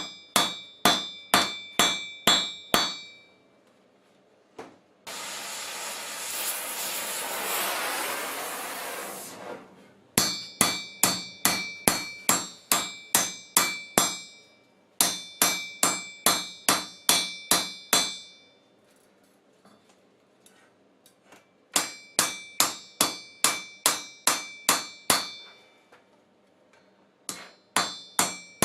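Blacksmith's hammer striking steel on an anvil while forging a hammer head: runs of about three ringing blows a second, in four bursts of several seconds each with pauses between. Between the first two bursts comes about four seconds of steady hissing rush that swells and then fades.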